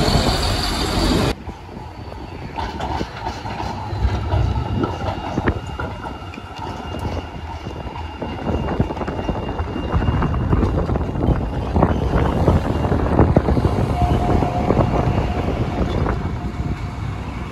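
Electric tram rolling through a curved track junction: wheels click over the rail joints and points, with a faint thin squeal from the wheels on the curve. Wind on the microphone for the first second, which cuts off abruptly.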